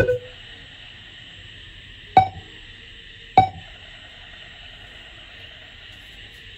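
Three sharp clinks, each with a brief ring: one at the start, then two about a second apart a little after two seconds in, over a steady hiss.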